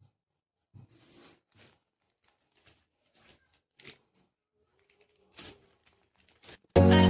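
Plastic courier mailer bag rustling and tearing in short, faint bursts as hands pull open its sealed flap. Loud music starts suddenly near the end.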